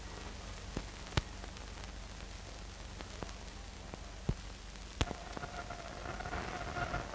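Steady hiss and low hum of an old film soundtrack, with a handful of sharp clicks and pops scattered through it. About five seconds in, a faint steady whine of two tones comes in.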